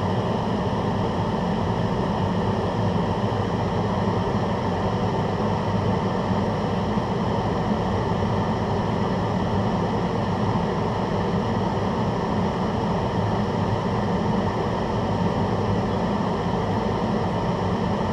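Kitchen range hood exhaust fan running with a steady, unchanging whir.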